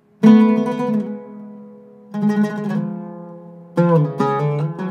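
Iraqi-style Zeryab oud with a cedar top and French mahogany back, plucked in a slow improvised passage. A loud ringing stroke just after the start dies away, a second stroke comes about two seconds in, and a quick run of notes starts near the end.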